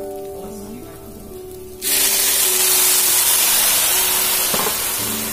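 Basmati rice fried in oil and ghee crackles faintly in a hot stainless steel pan; about two seconds in, milk hits the hot pan and a sudden loud sizzling hiss starts and carries on, easing slightly toward the end. The crackle is the sign that the rice is fried through and ready for the liquid.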